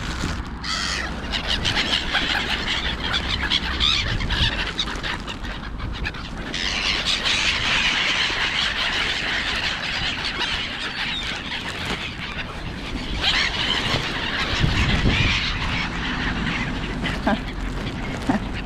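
Many birds calling harshly in a dense, continuous chorus, busiest from about six seconds in to about two-thirds of the way through.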